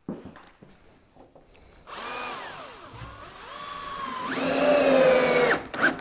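Cordless drill-driver driving a screw: after a few light clicks, the motor whines for about three and a half seconds. Its pitch sags under load, climbs back and holds high, then stops abruptly.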